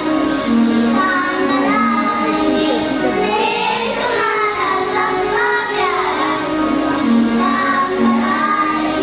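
Children singing a song over instrumental music, with held notes and a steady backing.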